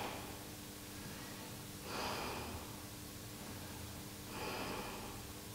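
A man breathing slowly and audibly as he holds a floor stretch, two breaths a couple of seconds apart, over a faint steady hum.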